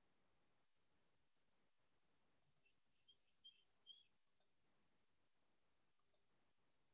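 Faint computer mouse clicks: three quick double clicks about two seconds apart, as the screen-shared whiteboard is being closed. A few faint short high chirps sound between the first two double clicks.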